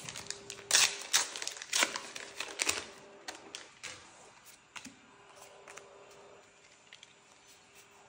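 Star Wars: Unlimited trading cards being sorted by hand: a quick run of sharp taps and clicks as cards and stacks are set down and squared on a playmat, densest in the first three seconds, then a few fainter ticks that die away about six seconds in.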